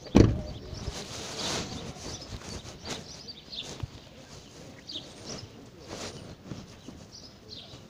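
A loud thump just after the start, then scattered light footsteps and occasional short bird chirps.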